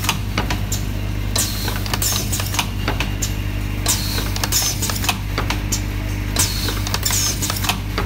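Automatic pin-header assembly machine running: rapid, continuous clicking of its pin-feeding and insertion mechanism over a steady low hum, with a short high-pitched squeal about every couple of seconds.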